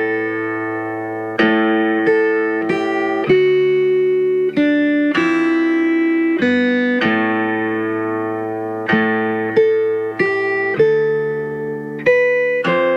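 Background music: a slow melody of plucked-string notes, each struck sharply and fading away.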